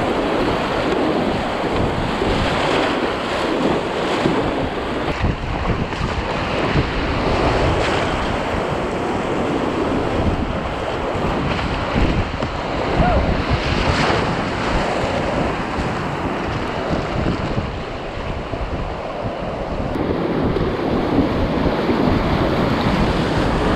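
Whitewater rapids rushing and splashing close around a kayak, with splashes from the paddle strokes and wind buffeting the camera's microphone.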